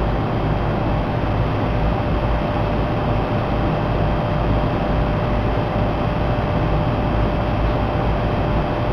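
HVAC system running: a steady rush of moving air with a low rumble and a thin steady hum.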